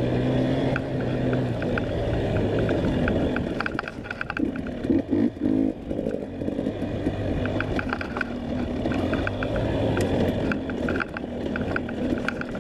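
Dirt bike engine running under load while being ridden, its pitch rising and falling with the throttle, with repeated clicks and clatter throughout.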